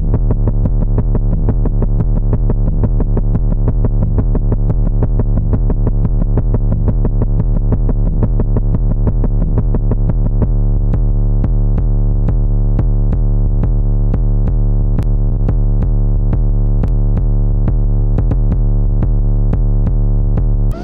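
Elastic Drums drum-synthesizer app playing a preset loop: a fast, evenly repeating electronic drum pattern of synthesized hits that drop in pitch, over a deep steady bass. About halfway through, the high end is filtered away and the loop sounds duller.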